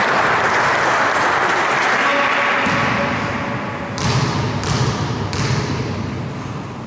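Crowd and player noise echoing in a gym, fading, then a basketball bounced three times on the court floor at an even pace. This is the shooter's bounce routine before a free throw.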